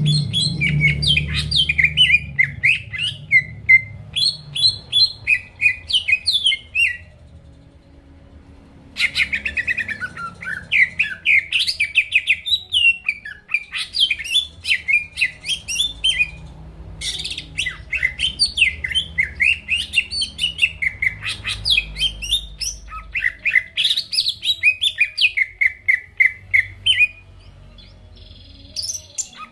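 Cucak ijo (green leafbird) singing a loud, rapid string of chirping, sweeping notes in long bursts, with short pauses about seven seconds in, near the middle and near the end.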